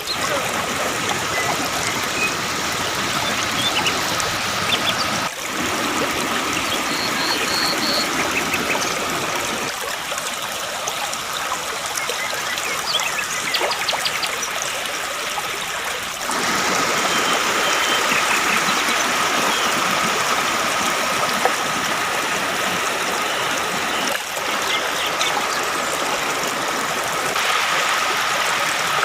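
Waterfall water rushing and splashing steadily. The sound changes abruptly several times, where separate shots are joined. A faint steady high tone runs under some stretches.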